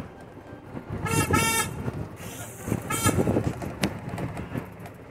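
Golf cart horn beeping: two short toots about a second in and a third about three seconds in, over the low rumble of the cart driving on gravel.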